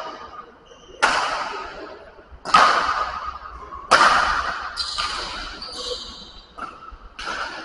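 Badminton rally: rackets smacking a shuttlecock back and forth, a sharp hit about every second or so, each ringing on in the echo of a large hall. The later hits are lighter.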